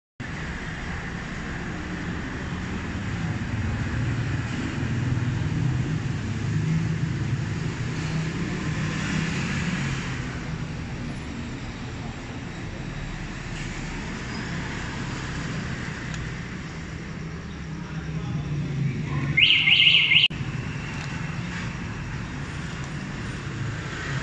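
Steady background noise with a low hum, then near the end a short, loud, high-pitched electronic chirping beep lasting under a second.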